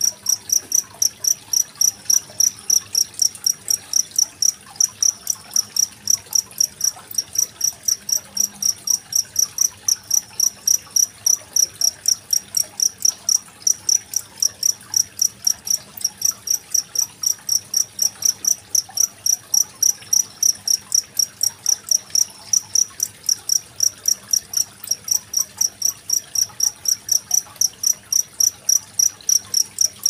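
A genggong cricket singing a steady, even train of high-pitched chirps, about three a second, over faint trickling water.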